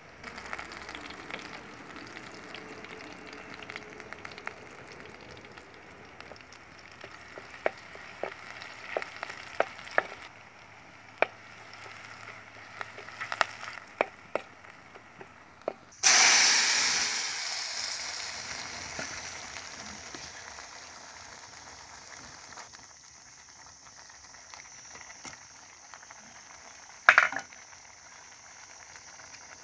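Sliced onions, curry leaves and garlic frying in oil in a clay pot, with a spoon stirring and clicking against the pot. About sixteen seconds in comes a sudden loud sizzle that fades over several seconds, as the cooked dhal goes into the hot oil. Near the end there is one brief loud knock.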